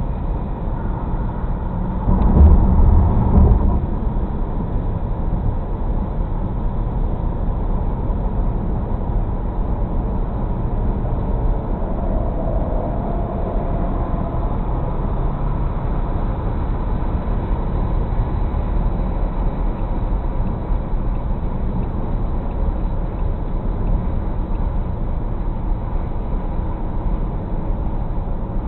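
Steady road and engine noise inside a car cruising on a highway, picked up by a dash cam's built-in microphone, with a brief louder stretch of noise about two seconds in.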